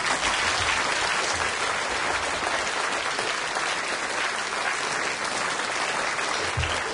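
A large audience of a few hundred people applauding, breaking out suddenly and going on steadily.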